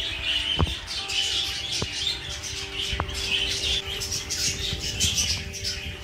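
Budgerigars chattering: a continual stream of quick, high chirps and warbles, over soft background music with held tones.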